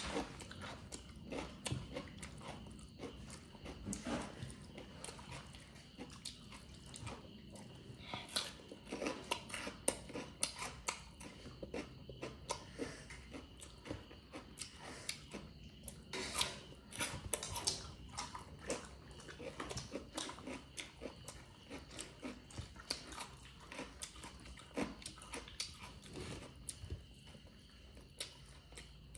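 A person eating chicken and cucumber: chewing and biting, with many short crunches and clicks at an uneven pace.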